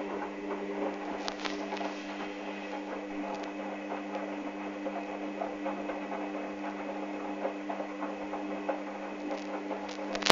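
Hoover Dynamic washing machine running through a rinse: a steady motor hum with water splashing and pattering inside the drum, and a sharp click at the very end.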